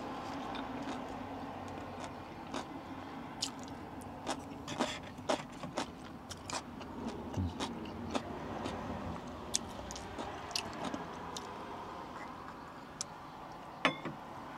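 Scattered small clicks and clinks of tableware and food containers being handled during a meal, over a steady low background noise, with one louder click near the end.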